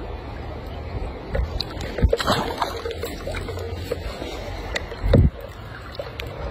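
Wind rumbling on the microphone over river water, with a splash about two seconds in as a small fish is dropped back into the river. A dull thump a little after five seconds.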